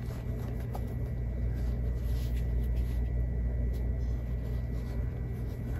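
Steady low background hum, with faint soft rustling as cotton fabric squares are handled and flipped.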